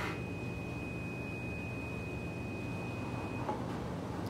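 A single steady high-pitched tone held at one pitch for about three and a half seconds, then cutting off, over a low steady hum.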